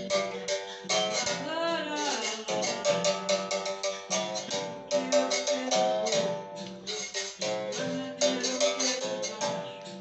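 Music from a plucked string instrument strummed in a quick, even rhythm, with a wavering, bending note about two seconds in.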